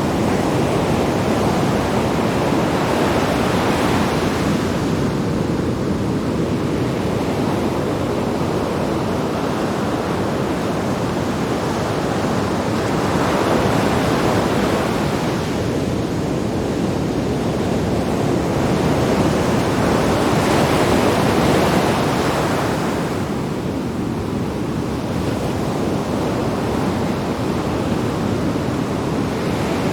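Sea waves breaking on rocks: a continuous rush of surf that swells about three times as waves crash and eases between them.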